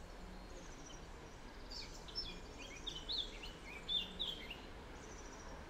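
Small birds chirping in a quick run of short, high, rising and falling notes that begins about two seconds in, over a faint steady low hum.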